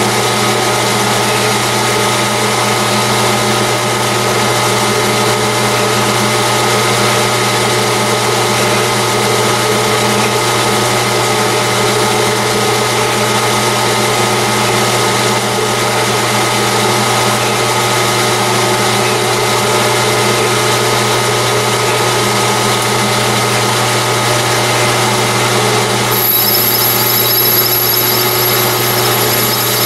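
Metal lathe running steadily while a threading tool cuts internal 24 TPI threads in a titanium suppressor tube: a constant machine hum with a few fixed tones. A thin high whine joins in about four seconds before the end and stops shortly before it.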